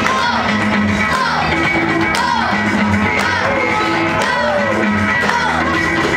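Loud music with vocals over it.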